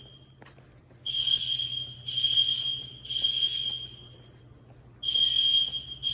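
Building fire alarm sounding a steady high-pitched tone in beeps grouped in threes, in the temporal-three evacuation pattern. Three beeps are followed by a pause of about a second, then the next group begins near the end.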